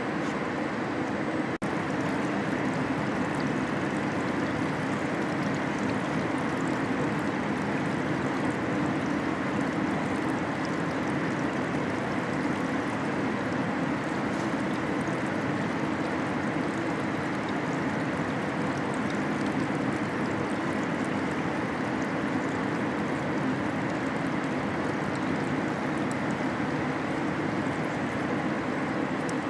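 Steady rush of flowing water over a low machine hum in a car-body rinse line, with water running across the floor and from spray nozzles. There is one brief dip about a second and a half in.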